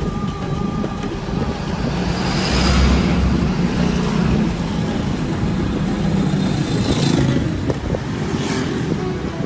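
Motorcycle running along a town street amid traffic, other motorcycles and vehicles passing close by. The traffic noise swells about two to four seconds in as a truck goes past, and two more vehicles sweep by near the end.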